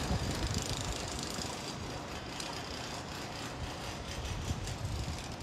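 Steady outdoor city background noise: a soft hiss with an uneven low rumble.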